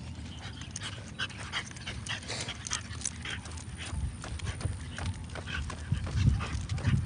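French bulldog walking on a concrete sidewalk, breathing and snuffling, with its claws ticking irregularly on the pavement; the sound gets heavier in the second half as it trots.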